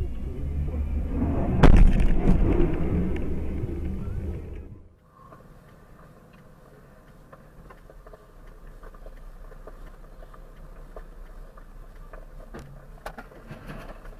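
Heavy lorry passing close by with a low engine and tyre rumble and a loud bang about two seconds in, as a loose wheel bounces along the road. It cuts off suddenly, leaving quieter in-car road noise with a few light knocks near the end.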